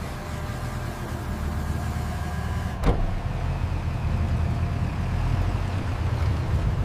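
Pickup truck engine running with a steady low rumble that builds slightly as the truck pulls past. A short thump is heard about three seconds in.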